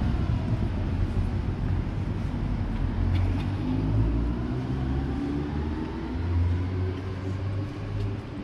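City street traffic: a motor vehicle's engine running close by, its note slowly rising and falling over a steady low rumble.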